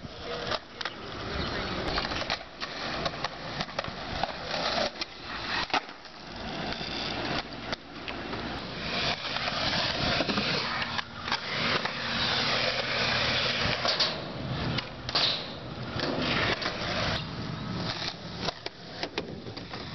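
Skateboard wheels rolling on concrete, with repeated sharp clacks of the board's tail popping and landing.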